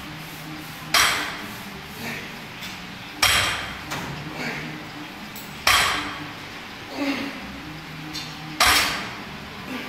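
Iron weight plates on a heavily loaded barbell clank and rattle with each rep. There are four loud clanks, about two and a half seconds apart, each with a short metallic ring, and lighter knocks in between.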